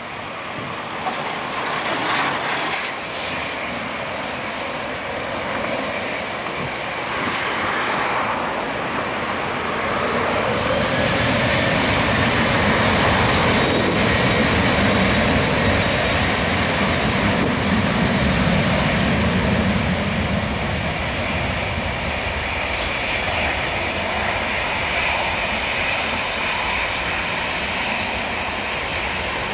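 Boeing 737-800's CFM56 turbofan engines running as the airliner rolls onto the runway. About ten seconds in, their whine rises sharply as thrust comes up for takeoff; the jet noise then grows loudest and slowly fades as the aircraft moves away.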